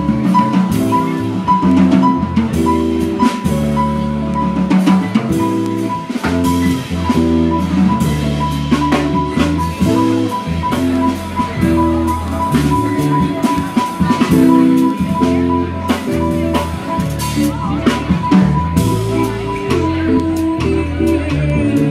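Live small band playing an instrumental passage: grand piano and electric guitar chords over drum kit percussion. A steady high tone runs underneath and fades near the end.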